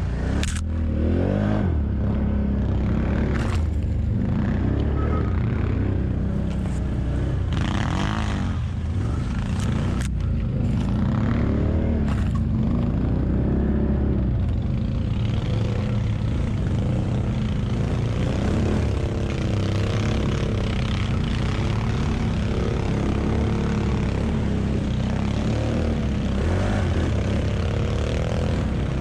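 ATV engine running under load on a climb, its pitch rising and falling as the throttle is worked. There are several sharp knocks and scrapes in the first half.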